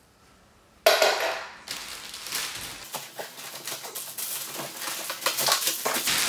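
Plastic wrapping crinkling and rustling densely as a plastic-wrapped standing-desk frame section is gripped and pulled up from its cardboard box. It starts with a sudden loud knock about a second in.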